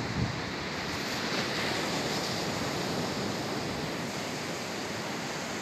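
Steady wash of sea surf breaking on a sandy beach, with wind blowing across the microphone.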